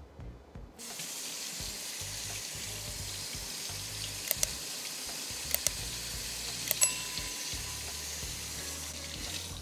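Kitchen faucet starting about a second in and running steadily, water splashing over a cleaned blue crab being rinsed out in a stainless steel sink. A few sharp clicks come through the running water.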